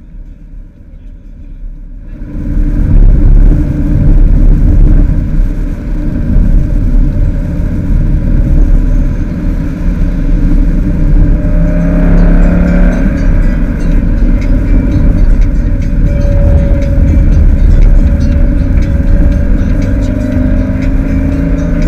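Subaru Crosstrek driving on a wet dirt track, heard from inside the cabin: a steady low rumble of tyres and road that comes up sharply about two seconds in, with faint ticking over it in the second half.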